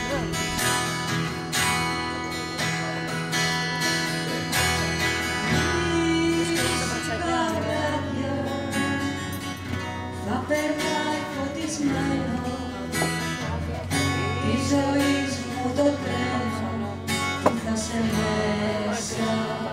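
Live acoustic guitar strummed in steady chords, with a woman singing into a microphone over it.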